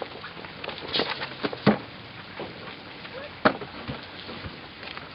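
Footsteps on paving and a few irregular knocks over a steady background hiss, with one louder thud nearly two seconds in.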